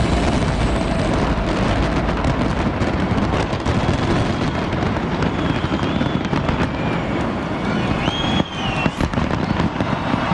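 New Year fireworks display on the Burj Khalifa: a dense, continuous barrage of crackling and bangs.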